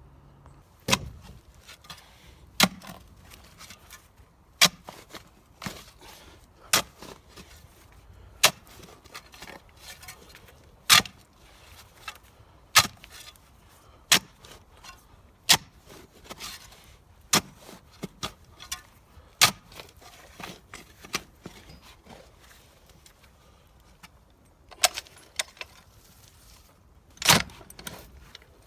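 Sharp, loud impacts repeated about once every two seconds, with fainter knocks between them, from work setting new posts to prop up a fence with snapped posts. The strikes pause about twenty seconds in, then two more come near the end.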